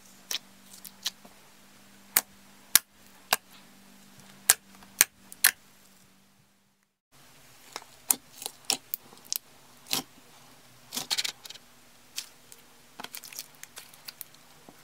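Clear slime being pressed and poked with fingers, giving sharp, irregular pops and clicks. After a brief silence, crunchy clear slime packed with small white beads pops and crackles as it is kneaded and stretched, with a quick run of crackling near the middle of that part.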